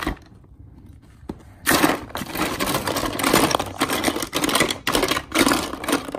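Plastic Play-Doh tubs, lids and moulding tools clattering against each other and the sides of a plastic storage bin as a small child rummages through it. After a couple of lone clicks, a dense, continuous rattling starts about a second and a half in.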